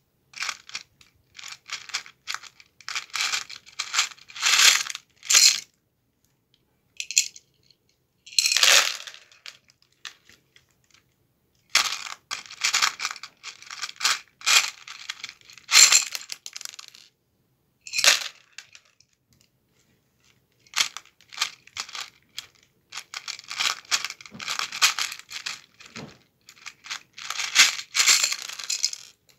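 Small loose plastic Lego pieces clattering and rattling as the bucket of a hand-worked Lego Technic model excavator scoops into a tub of them, in bursts of a few seconds with short pauses.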